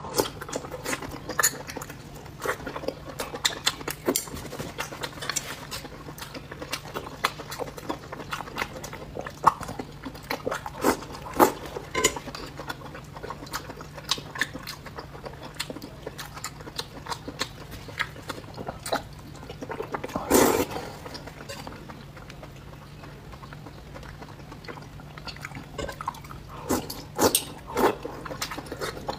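Close-miked eating: wet chewing and slurping of soft, chewy food, with scattered sharp clicks of chopsticks against a metal bowl. There is one longer, louder slurp about twenty seconds in.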